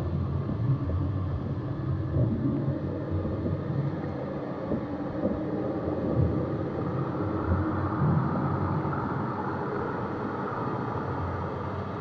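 Underwater lake ambience heard through a GoPro's waterproof housing: a steady low rumble of moving water, with a higher hiss rising in the second half.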